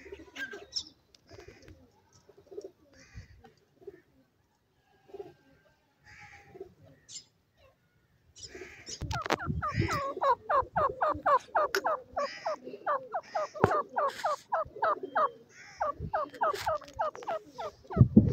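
Grey francolin (teetar) calling. After a few faint scattered notes, it breaks about eight seconds in into a fast, even run of short downward-sliding notes, about three to four a second. There are a few dull thumps, the loudest near the end.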